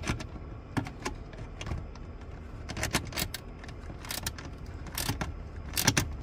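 Irregular light metallic clicks and rattles from a 10 mm socket wrench being worked on the nuts of a car radio mounting bracket, snugged just enough to hold.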